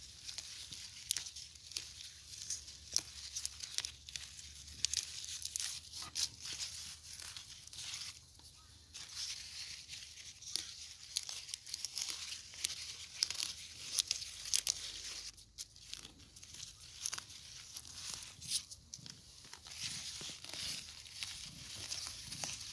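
Hands working through potted chrysanthemum foliage, pulling weeds and stripping leaves: irregular rustling, tearing and snapping of leaves and stems, in quick crackles.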